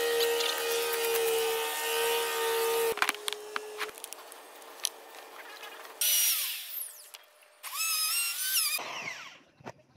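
Corded handheld electric power tool working wood: its motor runs with a steady whine, drops off sharply about three seconds in and fades out, then two loud bursts of about a second each, around six and eight seconds in, as it cuts into the board.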